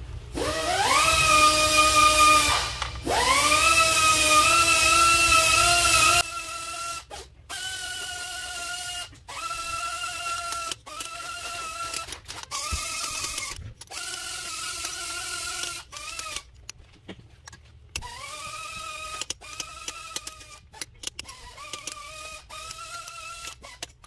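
Cordless power tool's electric motor whirring: two longer runs that spin up in pitch and hold, then a dozen or so short bursts of about a second each.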